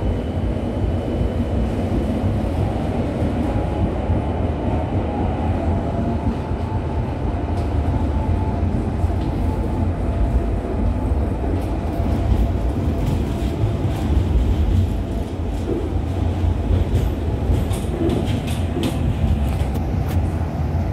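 V3A-2010-CA articulated tram running, heard from inside the car: a steady low rumble of wheels on the rails. A faint whine sits on top for the first several seconds, and scattered clicks come in the second half.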